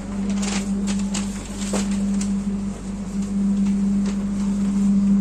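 Steady low hum inside a moving passenger train carriage, with light irregular clicks and knocks over it.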